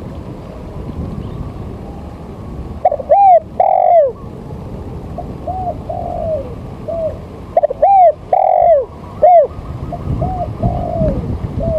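A bird calling in phrases of short, loud, arching notes, one phrase about three seconds in and another about eight seconds in, with softer single notes between, over a steady low background rumble.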